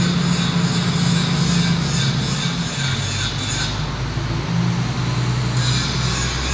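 Background music with sustained low notes that change every second or two and a light steady beat; the top end briefly drops out and returns in the middle.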